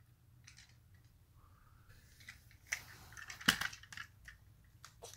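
Plastic parts of a Tobot transforming toy robot clicking and snapping as it is folded into car form by hand. There are scattered small clicks, with a sharper snap about three and a half seconds in.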